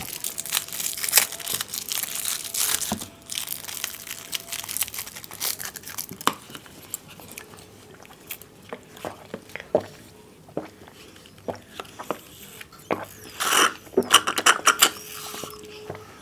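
Plastic straw wrappers tearing and crinkling and small Maaza mango-drink cartons being handled and pierced with straws: a busy crackle of rustles and clicks at first, then scattered clicks and a few louder crinkles near the end as the cartons are squeezed and sipped from.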